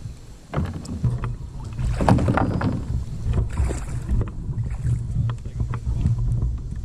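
Kayak running rapids: rushing river water and wind rumbling on the microphone, with scattered splashes and a louder rush about two seconds in.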